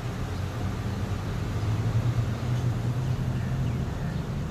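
A steady low mechanical hum over a background of noise.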